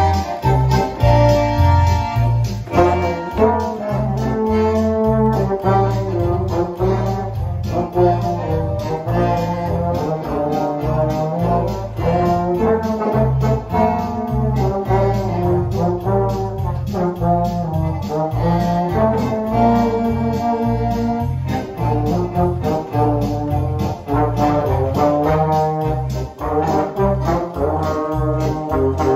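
A small band playing a polka: a Roland digital accordion, a baritone horn, a trombone and an electric bass, over a steady beat.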